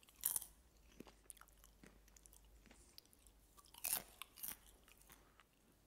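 A person biting and chewing crunchy cheese-seasoned popcorn: a sharp crunch just after the start, smaller crunches through the middle, and another loud run of crunches about four seconds in.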